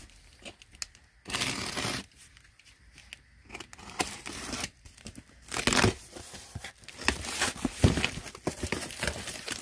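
A cardboard shipping box being opened by hand: tape and cardboard ripping in irregular bursts, with the packaging inside rustling and crinkling and a few sharp knocks.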